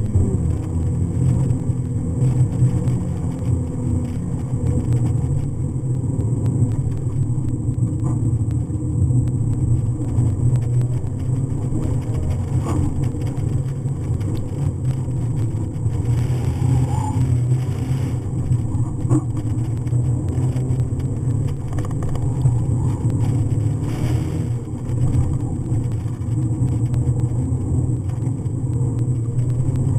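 Mazda MX-5's four-cylinder engine running steadily as the car is driven through an autocross cone course, heard from inside the open-top cockpit with wind noise mixed in.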